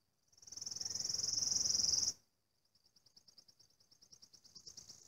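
An insect trilling high in rapid pulses. A loud buzz swells for about a second and a half and cuts off abruptly, with a rush of low noise under it. After a short gap a ticking trill starts up again and grows louder.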